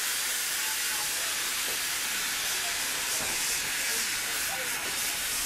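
Steady, even hiss of steam from a steam locomotive alongside a train of vintage carriages.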